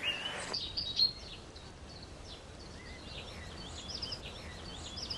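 Many small birds chirping in short, high peeps, scattered over a faint background hiss.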